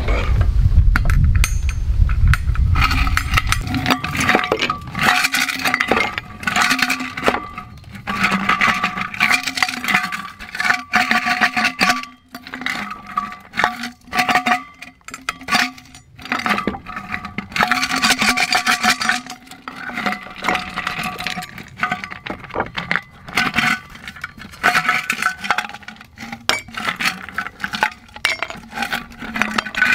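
Ice cubes clinking and clattering into a thick glass beer mug in irregular bunches as they are shaken loose, the ice sticking and coming out in fits and starts.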